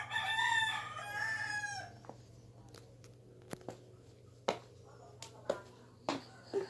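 A high-pitched animal call in two drawn-out parts over the first two seconds, followed by several scattered sharp clicks and knocks.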